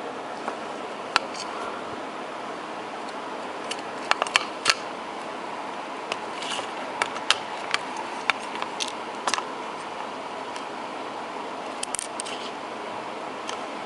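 Scattered light clicks and taps of small hand tools and phone parts being handled, about a dozen at irregular intervals, over a steady whirring hiss.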